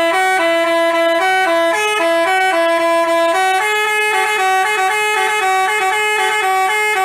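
Basuri telolet bus horn playing a quick tune: two horn tones sound together and step between a few notes, several notes a second.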